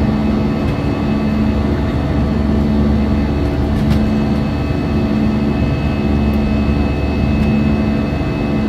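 Steady cabin noise inside an Airbus A320-216 airliner in flight: a constant rush of airflow and the drone of its CFM56 jet engines, with a low hum that swells and fades slowly. There is a faint click about four seconds in.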